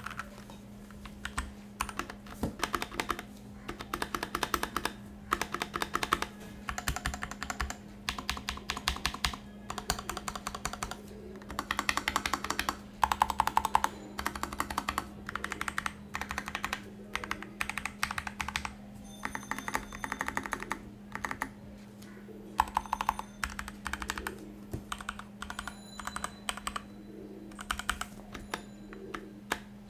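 Keychron K4 V2 wireless mechanical keyboard with Gateron Brown switches and ABS keycaps being typed on: runs of fast keystrokes separated by short pauses, over a steady low hum. The keystrokes have a fairly thocky sound, which the reviewer thinks is held back by empty space inside the foamless case.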